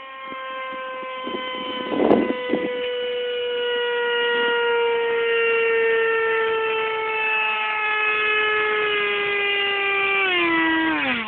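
Radio-controlled model jet flying overhead: a loud, high whine with many overtones that sinks slowly in pitch, then drops steeply near the end. A brief bump about two seconds in.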